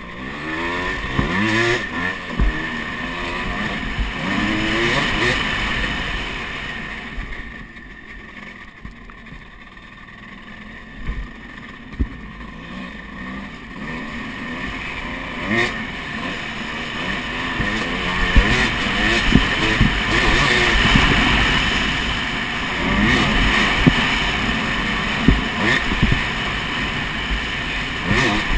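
Dirt bike engine revving up and down as it is ridden along a bumpy trail, easing off for several seconds partway through and then pulling harder again, with scattered knocks and rattles from the bumps.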